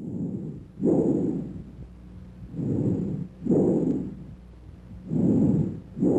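Bronchial breath sounds heard through a stethoscope: about five rushes of airflow noise, inspiration and expiration, with short quiet gaps between them. In bronchial breathing the expiratory sound lasts longer than the inspiratory one and a silent gap separates the two; normally such sounds are heard only over the manubrium.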